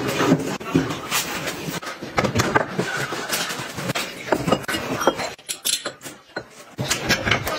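Kitchen items handled at a sink: ceramic bowls and a spoon set down on a roll-up dish drying rack, with a run of clicks, knocks and clinks and a short quieter pause about two-thirds of the way through.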